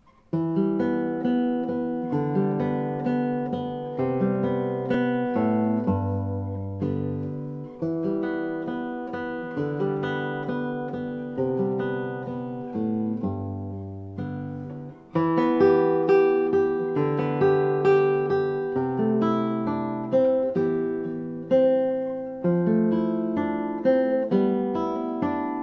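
Solo nylon-string classical guitar, a Vicente Carrillo Estudio, playing plucked chords and arpeggios with the notes left ringing over one another. The music grows louder about fifteen seconds in.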